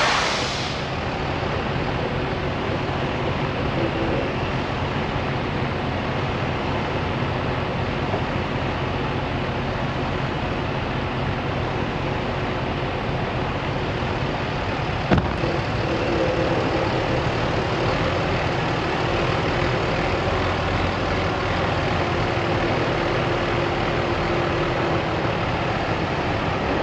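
Semi truck's diesel engine running steadily at low revs while the rig is maneuvered slowly, with one sharp knock about fifteen seconds in.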